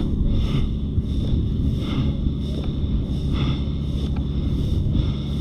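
Steady low wind rumble on the microphone, with soft rustling steps about every three-quarters of a second as a player walks through brush.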